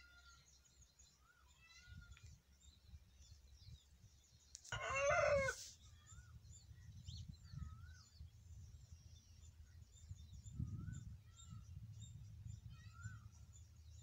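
Small birds chirping and twittering, with one loud animal call lasting about a second roughly five seconds in, over a low rumble.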